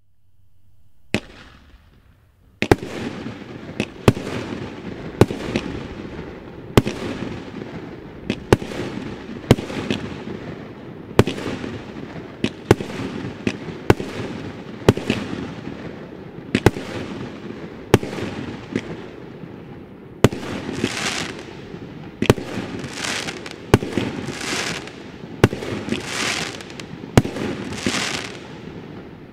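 A 132-shot consumer firework cake firing. After a faint lead-in, shots launch one after another about once a second, each a sharp bang over a continuous crackling rumble of bursting shells. From about two-thirds of the way through, each shot trails a brighter hissing crackle.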